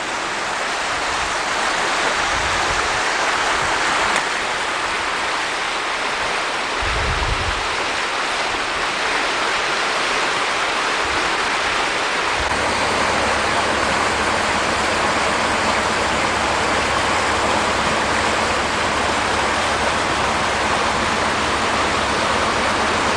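Floodwater rushing in a steady loud torrent from a creek swollen by about ten inches of overnight rain. A low steady hum joins about halfway through.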